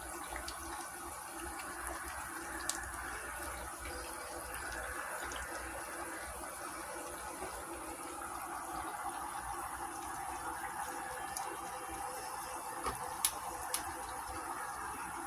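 Chicken pieces frying in hot oil: a steady sizzle, with a few sharp pops about three seconds in and a cluster of pops near the end.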